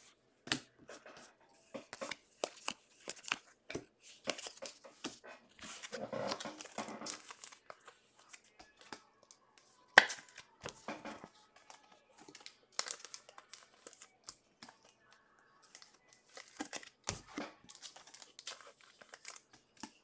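Baseball trading cards and card packs being handled: intermittent crinkling, tearing and rustling with scattered sharp taps, the sharpest about halfway through.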